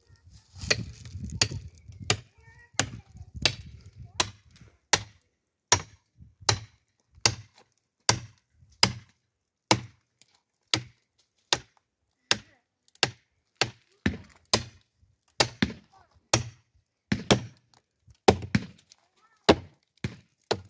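Firewood being chopped by hand: sharp blows of a blade into wood, evenly paced at about one every three-quarters of a second.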